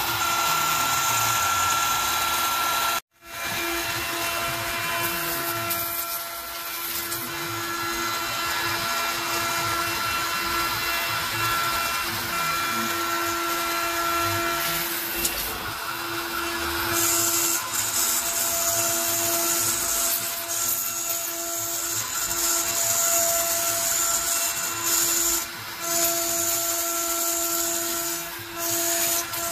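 CNC router spindle running at a steady high whine while a single-flute spiral upcut bit mills 3/8-inch cast acrylic. There is a brief gap about three seconds in.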